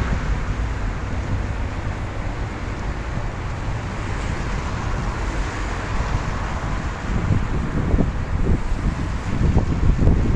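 Wind rushing over the microphone with a steady low rumble of street traffic in the rain. The wind buffets the microphone with a few sharper thumps in the last few seconds.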